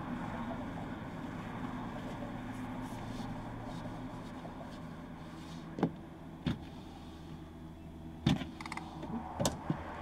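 Steady, muffled hum of outside traffic and station noise heard through the glass from inside a car cabin, with a squeegee working over the windows. In the second half come a few sharp knocks.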